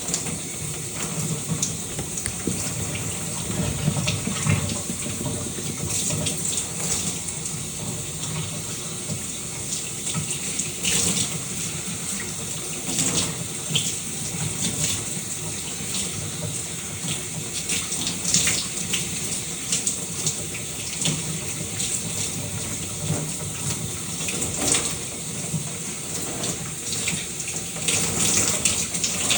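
Shower running: a steady spray of water with scattered splashes, a little louder near the end.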